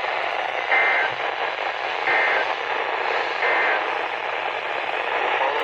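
Weather radio receiver hissing with heavy static from a weak NOAA Weather Radio signal. Three short bursts of alert data tones come through about a second and a half apart, the EAS/SAME end-of-message signal of an emergency alert.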